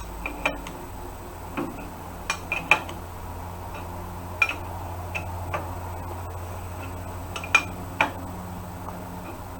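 Hand tools clinking against the steel of a tractor quick hitch while its bolts are tightened: about ten scattered sharp metal clinks over a low steady hum.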